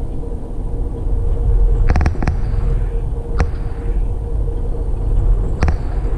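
Ride noise inside a moving Amtrak Texas Eagle passenger car: a steady low rumble with a faint steady hum. Sharp clicks break through it: a quick cluster of three about two seconds in, another about a second later, and one more near the end.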